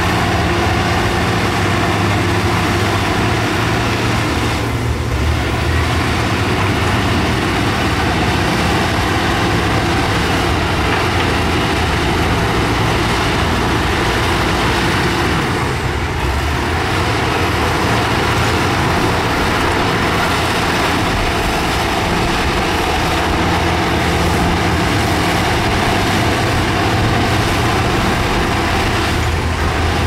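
Heavy diesel engine of earthmoving machinery (excavator or bulldozer) running steadily, easing off briefly twice, about five and sixteen seconds in.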